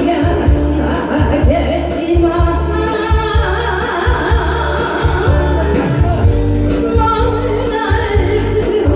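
A singer performing a Korean popular song live over music accompaniment with a steady bass beat, holding long sung notes.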